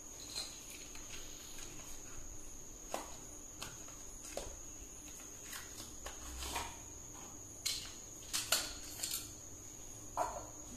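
Scattered light clicks and knocks of hands handling the TV stand parts and screws, loudest in a cluster near the end, over a steady high-pitched whine.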